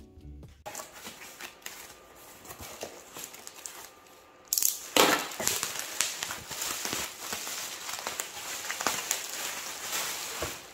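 Plastic bubble wrap crinkling and rustling as it is handled and pulled out of a cardboard box. It is faint at first and turns much louder and busier a little before halfway.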